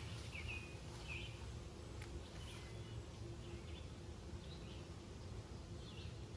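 Small birds chirping in short repeated notes, busiest in the first second and sparser after, over a steady low outdoor rumble.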